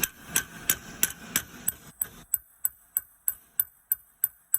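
Light hammer taps in a steady rhythm, about three a second, driving a part of the short shifter assembly into place; each tap rings briefly.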